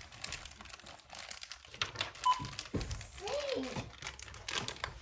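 Plastic packaging crinkling and rustling with small clicks and knocks as parts of a toy microscope kit are handled. A short electronic beep sounds once about two seconds in.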